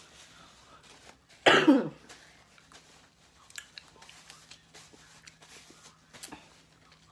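A woman coughs once, short and loud, about a second and a half in, while eating. A few faint clicks and taps follow.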